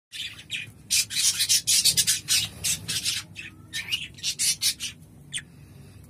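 Budgerigar chick scratching and rustling in the nest box's wood-shaving bedding, a quick run of dry scratchy rustles, with a few short chirps in the second half.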